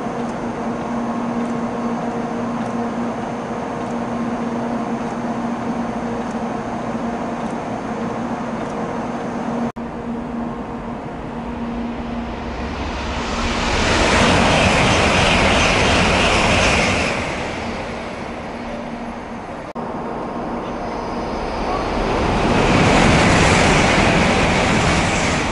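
Shinkansen high-speed trains passing through a station: a steady hum with a couple of steady tones, then two separate rushes of wheel and air noise, each swelling and fading over about four seconds, the first a little past halfway and the second near the end.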